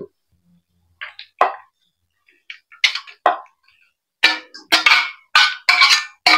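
Raw chicken pieces being put into a bowl of curd-and-spice marinade: a series of short plops and knocks, a few scattered ones at first, then coming faster over the last two seconds.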